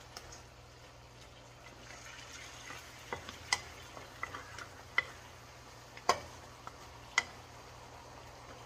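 Wooden spatula stirring fish, ginger and vegetables in a hammered steel wok over a faint sizzle, with a few sharp clicks where the spatula knocks the pan.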